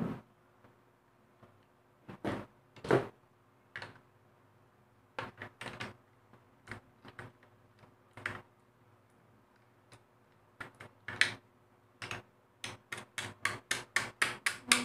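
Plastic housing and mechanism of an opened mini sewing machine being handled: scattered sharp clicks and knocks, then a quickening run of clicks over the last two seconds or so.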